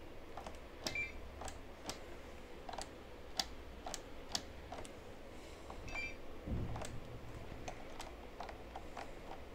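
Light, irregular plastic clicks from a scale RC bus's drivetrain as its rear wheels and driveshaft are turned and handled by hand to check a faulty differential, with a dull bump about six and a half seconds in.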